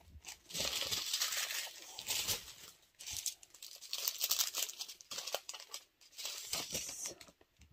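Strip of small plastic bags of diamond-painting drills crinkling and rustling as it is handled, in irregular spells with short lulls.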